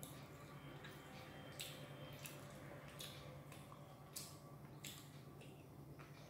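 Faint wet, squishy clicks from hand-eating: fingers mixing rice on a plate, then the mouth chewing a handful of food. The clicks come irregularly, about one every half second to a second.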